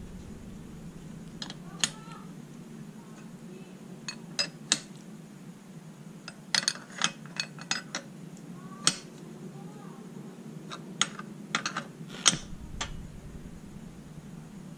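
Light metallic clicks and clinks, scattered and irregular, as a thin metal tool and fingers work a new crankshaft oil seal into its seat in an aluminium Vespa crankcase, pressed in by hand rather than tapped. A steady low hum runs underneath.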